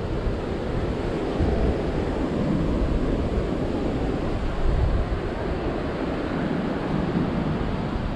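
Strong wind buffeting the microphone: a loud, steady rushing noise that flutters in the low end.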